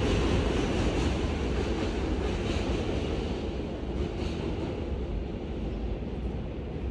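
Steady loud rumble of a moving vehicle that eases off slightly over the seconds.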